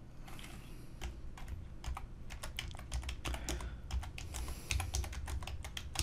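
Typing on a computer keyboard: a quick, uneven run of keystroke clicks spelling out a short phrase.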